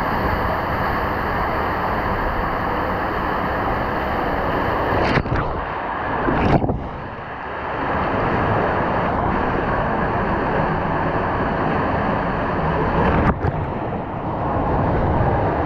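Rushing water and the rush of air in a water slide tube, heard close up as a rider slides feet first through it: a loud, steady noise with wind on the microphone. The sound changes suddenly about five seconds in and again about thirteen seconds in, with a brief surge and then a dip after the first change.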